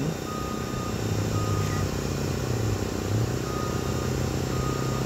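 Steady low drone of machinery, with a high beep sounding in short, evenly pitched blips, four times with a pause in the middle, like a construction vehicle's reversing alarm.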